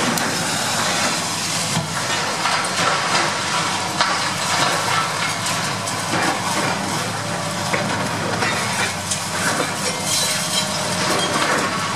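Long-reach demolition excavator's diesel engine running steadily under load, with continuous crunching and crackling of concrete being broken from the silo wall and falling as rubble, dotted with scattered sharp clicks.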